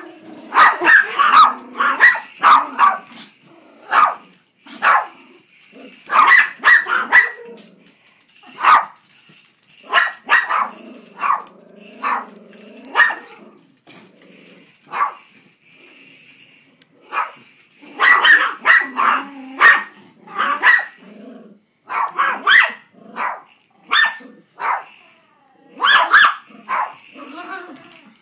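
Yorkshire terriers barking excitedly at a mouse they are chasing: sharp, high yaps in bursts of several quick barks with short pauses between. A low growl comes in among the barks about ten to thirteen seconds in.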